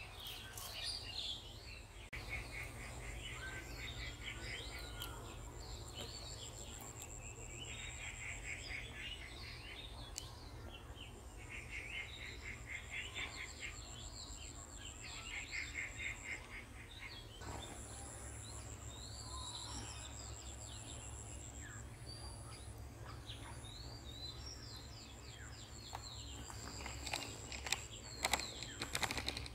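Outdoor ambience of birds chirping and trilling in rapid repeated notes, over a steady high-pitched buzz and a low constant hum. A few sharp clicks and rustles stand out near the end.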